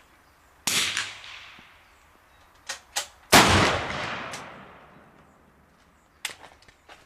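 Two rifle shots about two and a half seconds apart, each with a long echoing tail; the second is the louder. A few small sharp clicks come in between, two of them just before the second shot.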